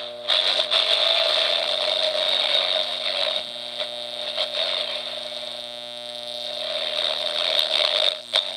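Small speaker of a laser-beam audio receiver kit putting out loud, garbled, distorted buzz and crackle over mains hum, the transmitted music unrecognisable, a sign of the link being over- or under-modulated. Loudest in the first few seconds, dipping in the middle and rising again, with a couple of sharp clicks near the end.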